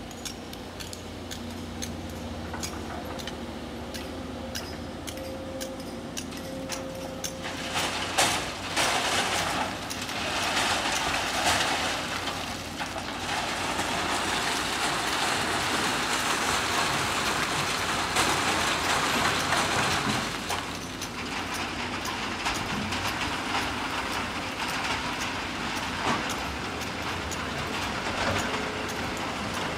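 Diesel engines of SANY excavators running with a steady hum. From about eight seconds in, an excavator bucket dumps rocky sand into a steel dump-truck bed: a long rattling pour with stones clattering, loudest in the middle, easing after about twenty seconds.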